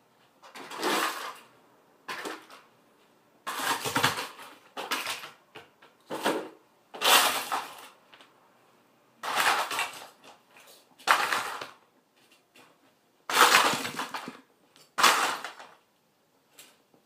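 Plastic toy cars and trucks being kicked and trodden on by a person walking among them, clattering and cracking in about ten separate bursts with short pauses between.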